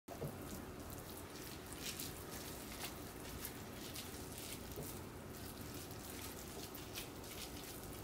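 Faint, irregular wet squishing and sticky clicks of bare hands pressing and rolling a sticky-rice and beef mixture into rice balls.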